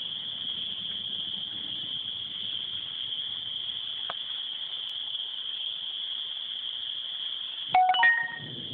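A steady, high-pitched chorus of calling animals. Near the end comes a short, loud chime of several electronic tones, a phone alert for a move in a Scrabble game.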